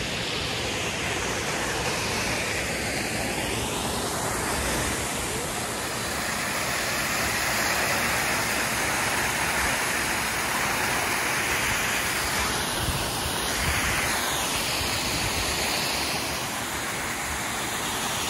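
Pistyll Rhaeadr waterfall rushing: a steady, dense wash of falling water.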